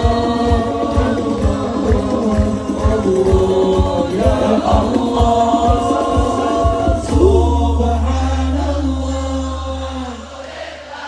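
Sholawat sung by many voices together over steady drum beats. About seven seconds in, the beats stop and a low bass note is held under the singing, which then fades out near the end.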